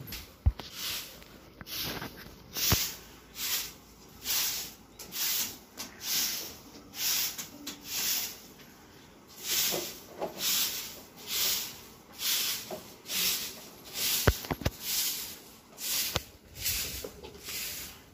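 Long-handled broom sweeping loose straw and husk across a cattle-shed floor: steady swishing strokes, about one every three-quarters of a second, with a few sharp knocks.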